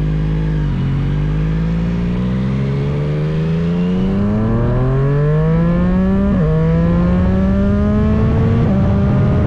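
Yamaha motorcycle engine accelerating hard, its note climbing steadily and dropping at each of several upshifts.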